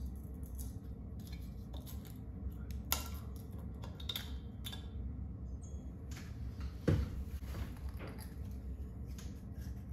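Hands handling a recessed light's trim and fittings: scattered light clicks and clinks of metal spring clips and plastic, with one louder knock about seven seconds in, over a steady low hum.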